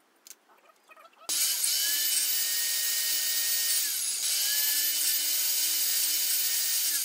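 Electric circular saw starting up about a second in and running at speed, cutting shallow grooves in a scrap wood board. Its whine dips briefly around the middle, picks up again, and winds down near the end.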